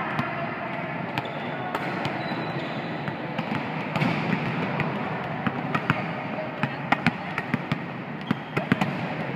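Volleyballs being struck and bouncing on the court floor during passing drills, a run of sharp slaps and thuds that comes more often in the second half, in an echoing sports hall.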